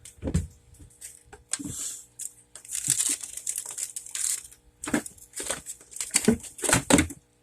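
Irregular crinkling, rustling noises: a run of short scraping bursts, some with a dull knock, coming in uneven clusters.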